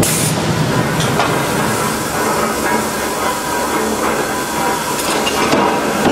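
Steady industrial din of a hot-forging press line, with a short hiss right at the start and a few scattered metallic knocks and clatters.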